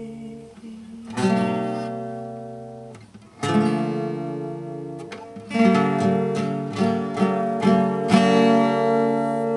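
Acoustic guitar strummed and left to ring. Single chords sound about a second in and again about three and a half seconds in, then a quicker run of about seven strummed chords from about five and a half seconds, the last one ringing out.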